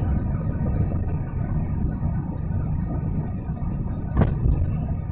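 Steady low road and engine rumble heard inside a moving car's cabin, with a brief knock about four seconds in.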